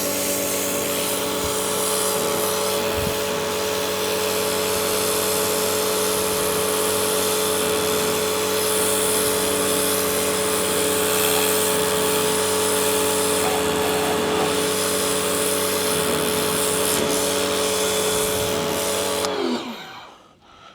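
DeWalt DCMPW1600N 18-volt cordless pressure washer running steadily, its pump motor giving a high whine over the hiss of the water jet. Near the end the motor winds down in pitch and stops as the trigger is released.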